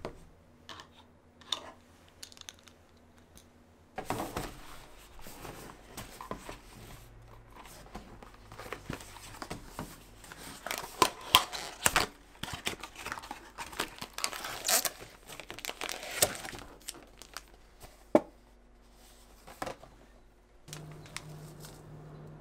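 Packaging being torn open and crinkled by hand, a cardboard box and a plastic bag, with dense sharp tearing and rustling from about four seconds in, loudest in the middle, preceded by a few faint taps. A steady low hum starts near the end.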